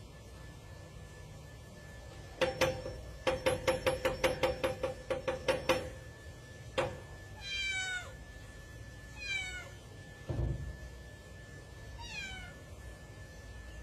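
A domestic cat paws at a wooden door, knocking and rattling it rapidly, about four knocks a second for some three seconds, with one more knock shortly after. It then meows three times, each call falling in pitch. Near the end there is a single dull thump.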